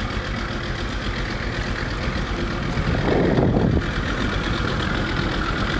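Small boat's outboard motor running steadily, with a brief louder low rush about three seconds in.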